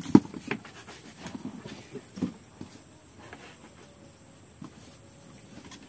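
Irregular clicks and knocks of things being handled, with a sharp click just after the start and scattered taps thinning out after about two seconds.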